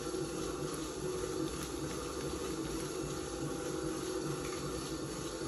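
Potter's wheel spinning with a steady hum while wet clay swishes under a hand pressing into the centered lump to open it.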